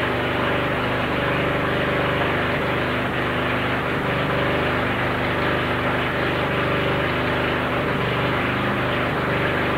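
Toyota rally car's engine idling steadily at an even pitch, without revving.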